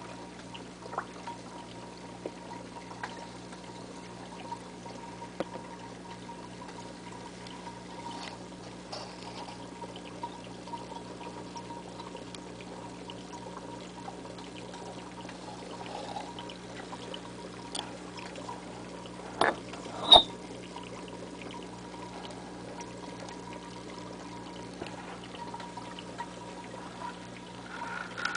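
Aquarium filter running: water trickling and splashing steadily over a low, steady hum. A few light clicks come early, and two sharp knocks close together about two-thirds of the way through.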